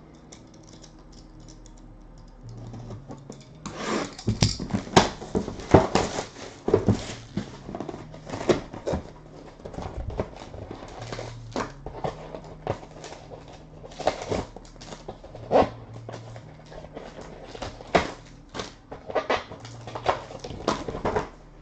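Hands opening a sealed box of 2012 Panini Playbook football cards and its pack: irregular crinkling, tearing and clicking of plastic wrap and cardboard, busier from about two seconds in.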